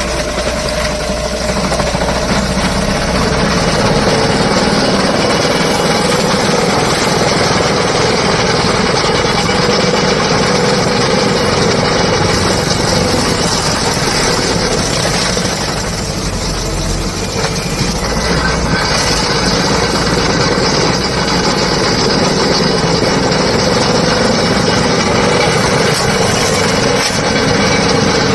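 Skid steer loader's engine running steadily with its cutting attachment working. The noise eases slightly for a moment about sixteen seconds in.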